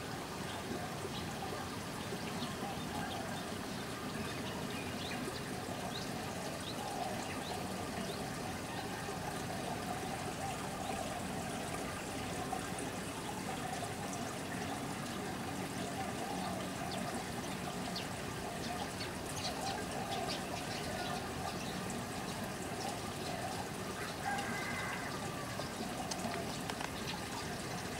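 Steady trickle and splash of running water from a pool-garden water feature, with a few faint bird chirps now and then.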